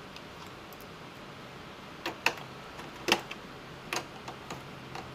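Small sharp clicks and taps of a screwdriver and metal hinge parts as the display hinge of a Dell Inspiron 1525 laptop is screwed back on. About eight clicks at uneven spacing start some two seconds in, over a faint steady hum.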